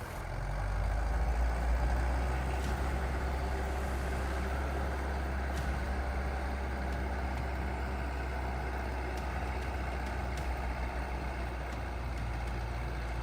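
Crawler bulldozer's diesel engine running steadily with a low hum.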